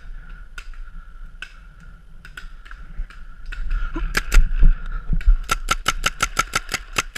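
Paintball marker firing a fast, even string of shots, about six a second, from about five and a half seconds in. Before it there are scattered single shots and a few low thumps.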